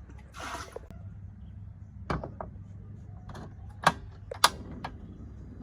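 A few scattered sharp knocks and clicks, about half a dozen, with a brief rustle near the start; the loudest two knocks come a little past the middle.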